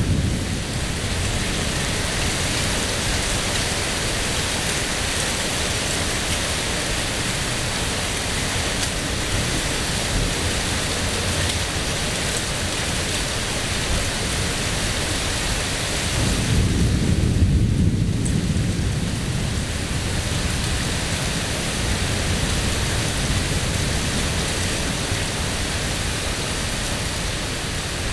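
Steady rain falling during a thunderstorm, with a low rumble of thunder swelling for a few seconds a little past halfway, and the end of another roll fading out at the start.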